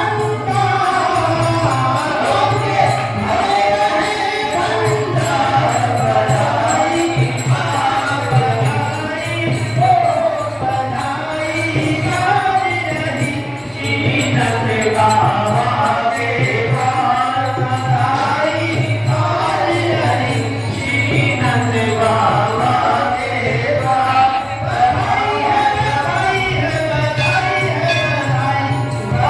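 Devotional music: voices singing together over a steady, rhythmic high percussion beat, typical of a Krishna bhajan.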